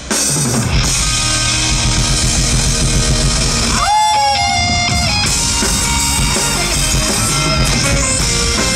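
A live rock band playing an instrumental passage: electric guitar over drums and bass. About four seconds in, the low end drops out for a moment while a high note slides up and is held.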